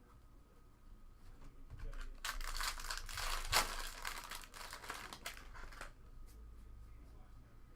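A foil trading-card pack wrapper being torn open and crinkled, a dense rustle lasting about three and a half seconds with one sharp crackle in the middle.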